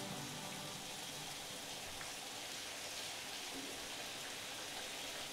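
Shower running: a steady hiss of water spraying down.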